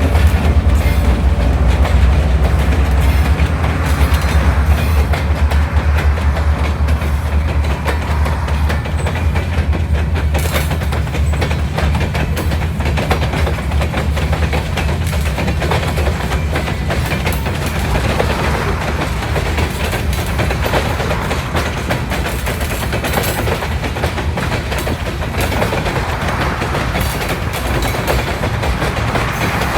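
Freight train rolling past, its wheels clicking over the rail joints. A heavy low rumble in the first several seconds eases off, leaving the steady rattle of the cars going by.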